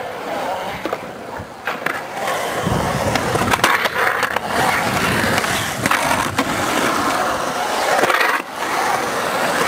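Skateboard wheels rolling and carving on a concrete bowl, with sharp clacks and a truck grinding along the bowl's coping.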